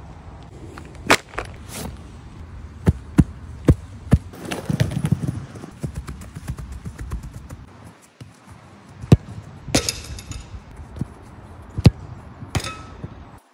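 A football being struck and touched on wet artificial turf: about ten sharp thuds spread through the stretch, with the loudest strikes near the end, over a steady hiss of rain.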